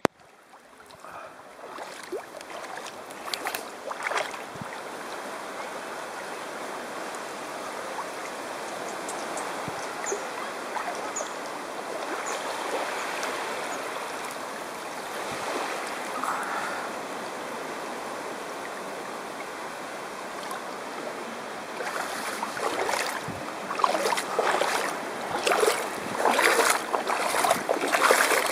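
Shallow seawater washing over sand and rocks at the shoreline: a steady wash of small waves, turning into louder, irregular splashing and lapping from about three-quarters of the way through.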